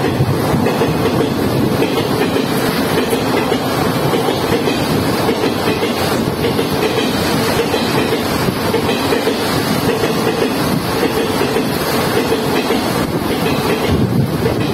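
Passenger coaches of the Howrah–Patna Janshatabdi express passing at about 130 km/h through a station without stopping: a loud, steady rush and rumble of the coaches and their wheels on the rails.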